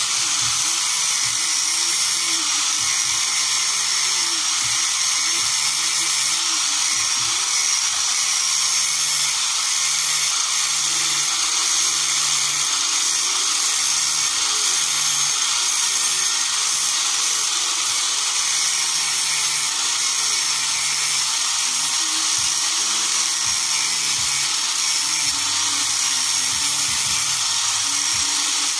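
Electric angle grinder with a sanding disc running steadily against the rocker arms of a Nissan TD27 diesel, with a high whine and hiss. It is grinding down the worn contact faces of the rocker arms so that correct valve clearance can be set.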